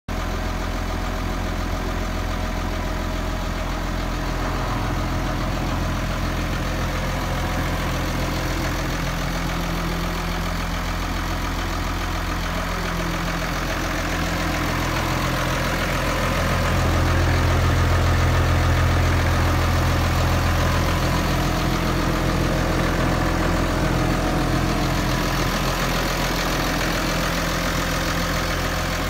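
New Holland T7030 tractor's six-cylinder diesel engine idling steadily with a low hum, swelling slightly for a few seconds midway.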